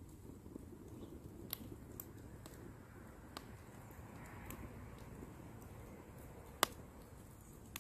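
Beech-wood campfire crackling with a low steady rumble and scattered sharp pops, one louder pop near the end.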